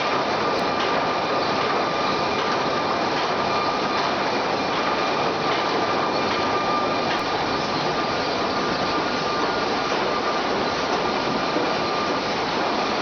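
Sawmill production-line machinery and board conveyors running steadily, with a constant high whine over the mechanical clatter.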